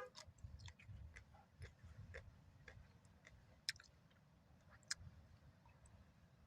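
Quiet chewing of food, with irregular small clicks and two sharper clicks near the middle.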